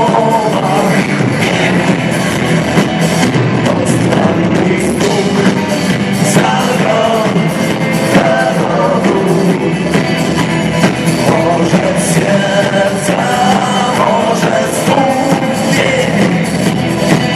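Live rock band playing a song, with drums, guitars and a sung vocal line.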